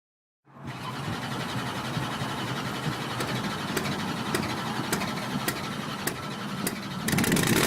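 Monster truck engine sound effect: an engine starts up and idles steadily, with a light tick repeating about every 0.6 seconds. It grows louder near the end.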